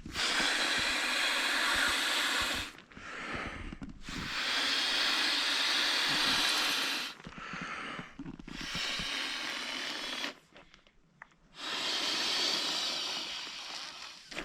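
A person blowing by mouth into the valve of a Vango Deep Sleep Thermo inflatable pillow. Four long breaths of rushing air, with short quick breaths in between, and a brief silent pause about ten seconds in.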